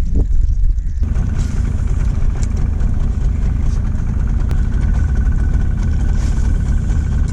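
Boat outboard motor running steadily, a low rumble with a faint thin whine above it.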